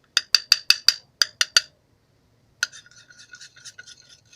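A stirring utensil tapping about eight times in quick succession against a container, then, after a short pause, scraping and stirring through a thick, sticky slime mix of glue and powder.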